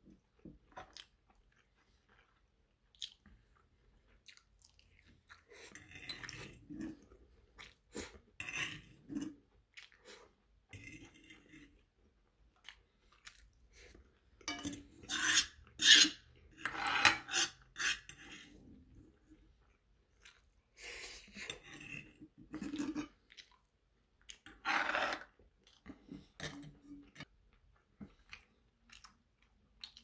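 Close-up chewing of steak and rice, broken up by a metal fork clinking and scraping against a frying pan. The loudest scrapes come around the middle.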